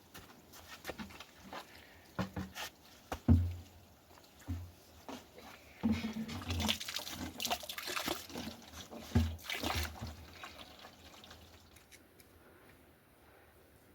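Liquid pouring and splashing in short spells, the busiest stretch about halfway through, amid scattered knocks and clicks; it dies down near the end.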